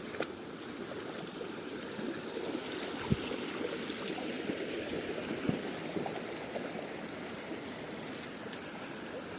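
Forest waterfall and stream water flowing steadily, with a gurgling, splashing wash. Twice there is a short, low plop.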